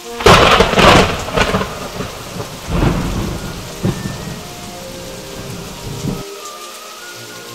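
A thunderclap cracks loudly about a third of a second in and rolls on in rumbles, swelling again around three seconds, over steady rain falling on a wet surface. The low rumble cuts off sharply about six seconds in, leaving the rain.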